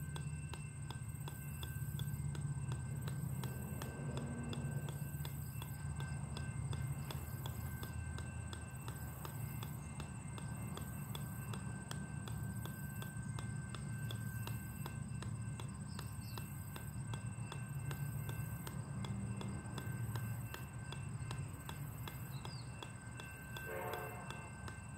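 Golf ball bouncing again and again on the steel head of an 8-pound sledgehammer, a steady run of sharp clicks like clip-clop, over a low background rumble.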